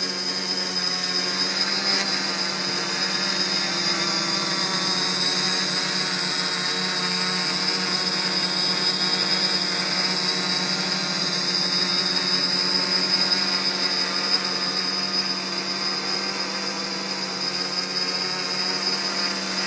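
Quadcopter's electric motors and propellers running in a hover, a steady high-pitched whine over a lower hum.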